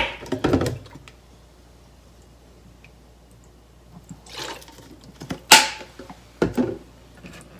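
Sharp plastic clicks and knocks from handling a bottle, measuring spoon and plastic food-processor bowl. About four seconds in comes a brief trickle of cooking sake poured into a metal measuring spoon. The loudest knock comes about five and a half seconds in.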